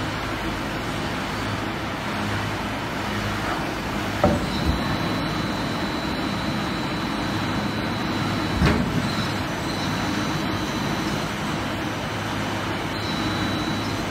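Veneer peeling line machinery, the log conveyor and feeding machine, running with a steady hum. Two loud knocks stand out, about four and eight and a half seconds in, and a thin high whine runs for a few seconds between them.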